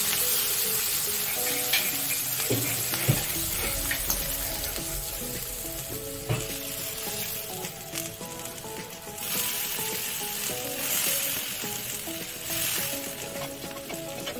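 Onions, green beans and mushrooms frying on a cast iron griddle: a steady sizzle, with a metal spatula scraping and clicking against the griddle now and then. The sizzle swells twice in the second half.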